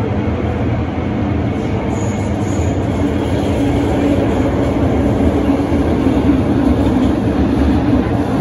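MTR M-Train electric multiple unit running through a tunnel, heard from inside the car: a steady wheel-and-track rumble. A low hum grows louder from about three seconds in.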